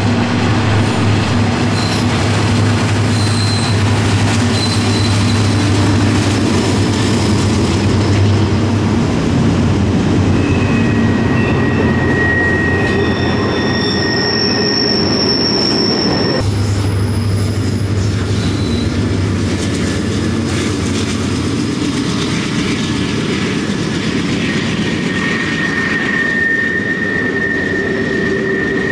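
Freight train passing on a curve: the lead EMD SD70ACe and GE Dash 9 diesel locomotives drone at first, then the freight cars roll by with wheels squealing thinly against the rail and clacking over joints. The sound changes abruptly about sixteen seconds in, when the low engine drone comes back.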